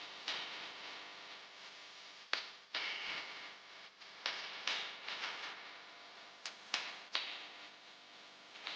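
Hands handling a squishy toy and its packaging: about ten sharp, irregular clicks and crinkly rustles over a steady hiss.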